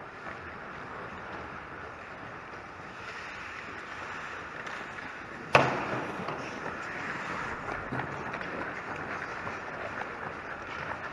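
Ice-rink game noise of skates scraping and carving the ice, with one sharp, loud crack about halfway through, typical of a hockey puck being shot or striking the goalie, stick or net.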